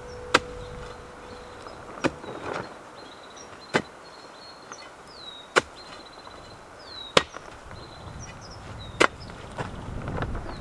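A long-handled digging tool chopping into hard, stony clay soil: six sharp strikes, one about every second and a half to two seconds.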